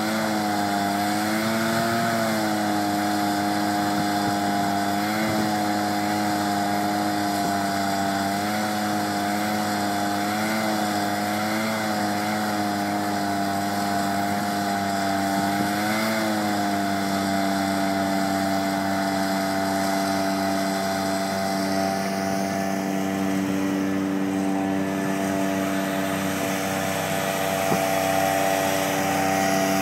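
Engine-driven suction of a paddock vacuum running, its hose sucking droppings off the grass. The steady engine hum wavers up and down in pitch several times in the first half, then holds steady.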